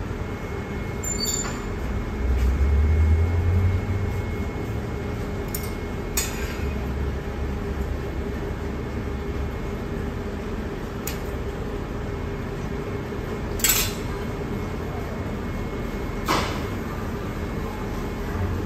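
Steady roar of a glassblowing studio's gas-fired glory hole and furnace with its ventilation fan. A low rumble swells for about two seconds near the start, and several sharp clinks of hand tools against the glass and the steel bench are scattered through it.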